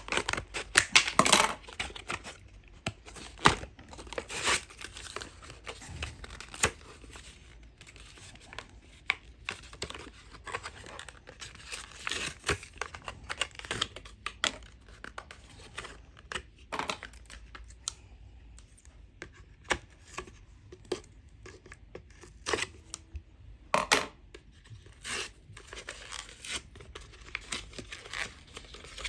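Tape measure packaging being torn and pulled open by hand: irregular tearing, crinkling and rustling, with scattered sharp clicks and knocks.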